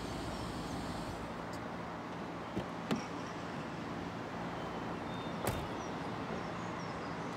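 Petrol-station forecourt ambience: a steady hum of cars and traffic, with a few short sharp knocks, the loudest about three seconds in and another about five and a half seconds in.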